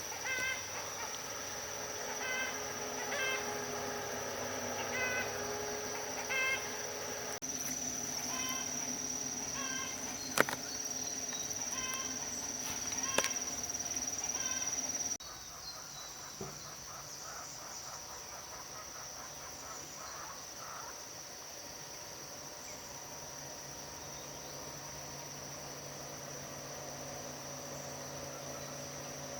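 Insects droning on one steady high note, with short chirping calls repeating every second or so through the first half. The background changes abruptly twice, about a third and halfway through.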